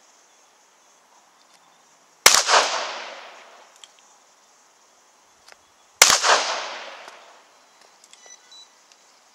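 Two revolver shots, about four seconds apart, each a sharp crack followed by a fading echo that lasts about a second.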